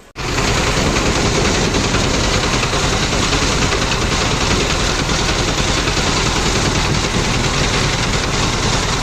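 An engine running close by, loud and steady with a rapid rattling pulse; it starts abruptly about a tenth of a second in.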